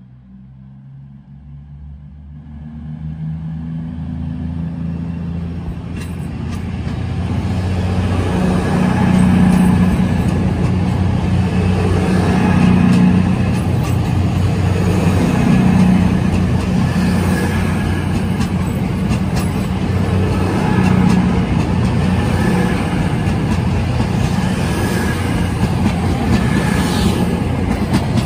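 CrossCountry Voyager diesel multiple unit approaching and passing, its underfloor diesel engines droning over rail noise. It grows louder over the first eight seconds, then stays loud, the drone swelling and fading as each coach goes by.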